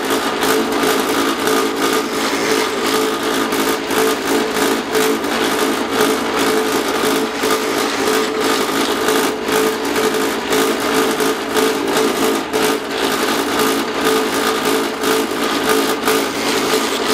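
Drill press running steadily with a constant motor hum while holes are drilled through a wooden banjo bridge blank held in a jig.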